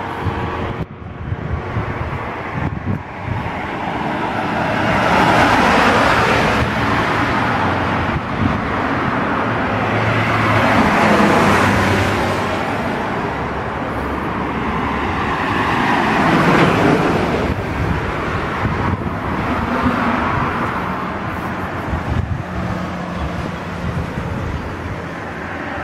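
Road vehicle noise: engine hum and tyre rush that swells and fades several times.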